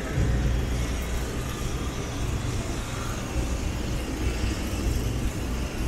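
City street traffic: a motor vehicle's engine running close by, a steady low rumble over general road noise.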